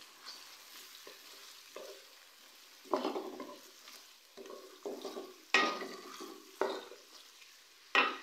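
Sliced onions frying in hot oil in a metal karahi with a soft steady sizzle, being fried until light golden. A wooden spoon stirs them, scraping across the pan in several strokes, the loudest about three seconds in, about five and a half seconds in and near the end.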